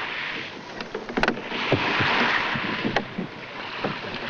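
Sea water washing around a wooden rowing boat in surges about every two seconds, with a few wooden knocks, the loudest about a second in.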